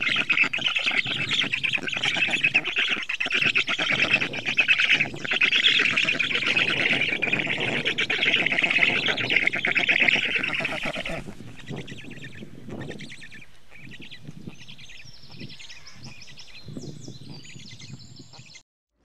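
Many birds calling at once in a dense, continuous chatter. About eleven seconds in it drops to fainter, scattered higher chirps, and the sound cuts off just before the end.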